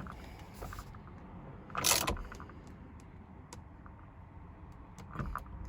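Ratchet wrench with a 21mm socket tightening the steering-wheel retaining bolt: a short metallic clatter about two seconds in, then scattered small ticks and clicks.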